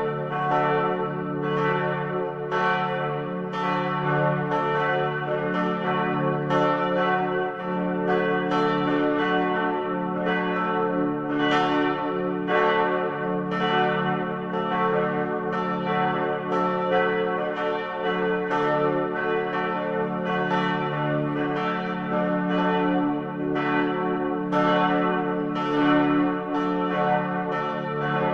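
Church bells ringing in a continuous peal: an even run of overlapping strokes, about one or two a second, each bell still ringing as the next is struck.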